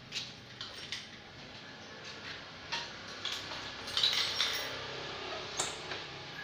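Scattered light metallic clinks and clicks, with a brief denser cluster of clinking about four seconds in.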